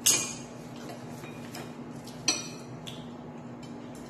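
Metal kitchen scissors and tongs clinking against a plate while cutting meat: a sharp clink at the start, another about two seconds later, with light ticks between.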